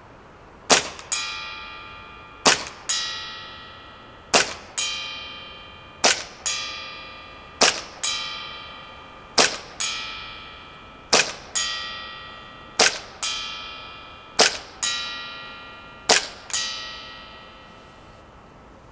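Carbon8 M45CQP CO2 gas blowback airsoft pistol fired ten times at a slow, even pace, about one shot every second and a half or so. Each shot is followed a moment later by the clang of the BB striking a metal target plate, which rings on for over a second.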